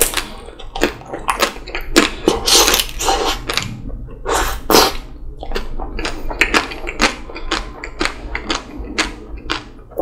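Close-miked eating of a Magnum Double Raspberry ice cream bar: bites crackling through the chocolate shell, then wet chewing, slurping and lip smacks, in quick irregular clicks with a few longer sucking swells.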